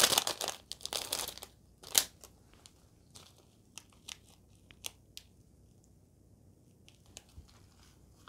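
Plastic seasoning-powder sachet from an instant-noodle packet crinkling as it is handled, then opened with one sharp snap about two seconds in, followed by a few faint rustles.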